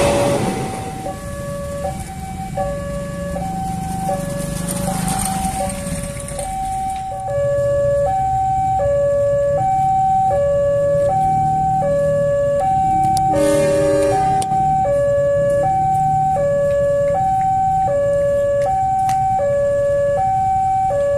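Railway level-crossing warning alarm sounding two notes in steady alternation, over the low rumble of an approaching train. About two-thirds of the way through, a brief horn blast sounds over it.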